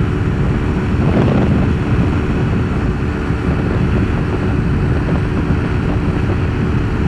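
Wind rushing over a helmet microphone while riding, over the steady note of a Kawasaki Ninja 250R's parallel-twin engine cruising at an even speed.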